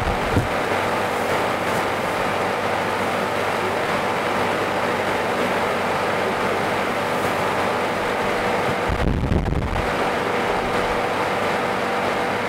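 Steady rushing background noise of a hall. There is a brief low knock at the start and a low thump about nine seconds in.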